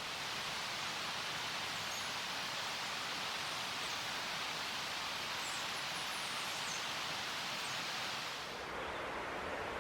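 Steady rushing outdoor ambience in a wooded mountainside, with a few faint, high bird chirps. The upper part of the rushing drops away about eight and a half seconds in.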